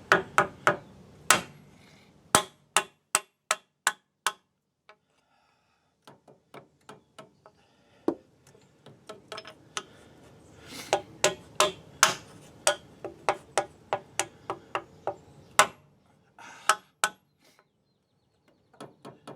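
Hammer taps driving a new rear axle seal into the axle housing of a 2005 GMC Envoy, a run of sharp knocks about three a second. The taps pause and go lighter a few seconds in, then pick up again. The seal is going in reluctantly.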